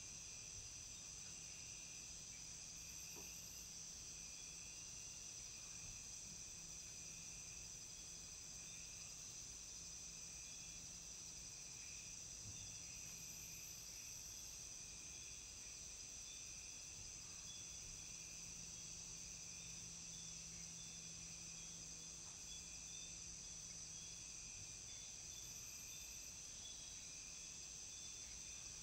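Faint, steady chorus of Amazon rainforest insects: a continuous high-pitched drone with a fast pulsing chirp running through it, and three brief very high notes spread across it.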